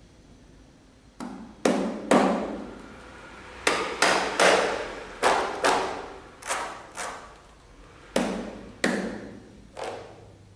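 Accordion played percussively: about a dozen sharp knocks and accented strikes on the instrument, in an uneven rhythm, each dying away within about half a second.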